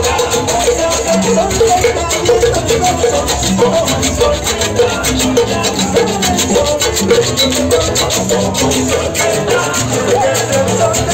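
Live salsa band playing: fast, even percussion strokes over a bass line and melody.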